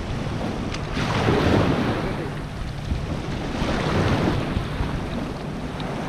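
Water splashing and streaming off a cast net as it is hauled up out of shallow water, swelling twice, with wind noise on the microphone.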